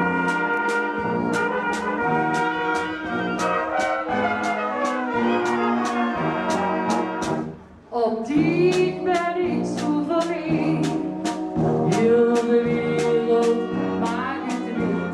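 Live Bohemian-style brass band (böhmische Blasmusik) playing, with trumpets and trombones over a steady beat of about two strokes a second. The music breaks off briefly about halfway, then comes back in loudly.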